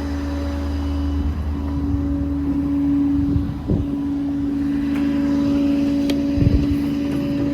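Ford 6.7 Power Stroke diesel running steadily with the PTO engaged to drive the hydraulics, a constant hum over a low rumble. Two short knocks come partway through, the first about three and a half seconds in and the second near the end.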